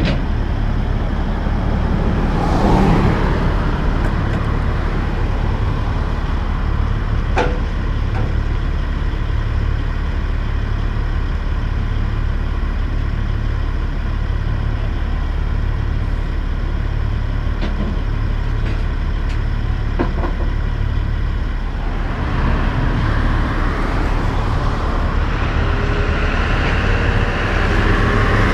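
Peterbilt 379 truck's diesel engine idling steadily, with a few sharp clicks and a rushing noise swelling over the last several seconds.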